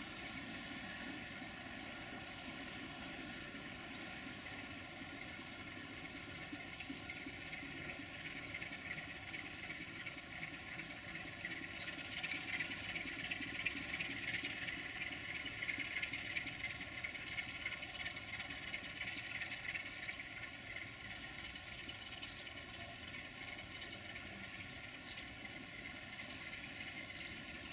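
Romanian 060-DA (LDE2100) diesel-electric locomotive's Sulzer engine running steadily a short way off as it shunts away from its coaches. It grows louder near the middle and then eases off.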